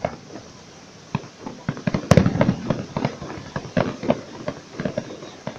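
Aerial fireworks bursting: a short lull, then a rapid string of bangs and crackling from about a second and a half in, the loudest bang at about two seconds.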